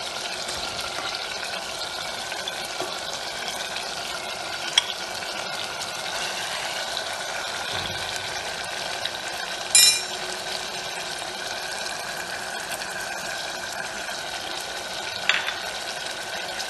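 Onions and yogurt sizzling in hot oil in an aluminium pressure-cooker pot, a steady frying hiss. A steel ladle stirs and clinks against the metal pot a few times, the loudest ringing clink a little past halfway.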